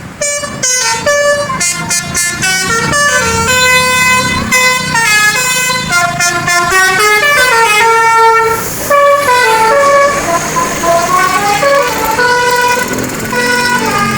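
Basuri telolet musical bus horn playing a long tune, one short pitched note after another stepping up and down without a break.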